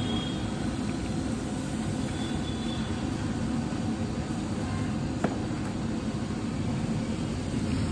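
Potato slices deep-frying in a large kadhai of hot oil: a steady, vigorous bubbling roar. A single sharp clink comes about five seconds in.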